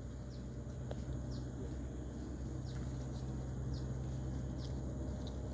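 Outdoor ambience of short, high, falling chirps from a small bird or insect, about one a second at irregular spacing, over a faint low steady hum.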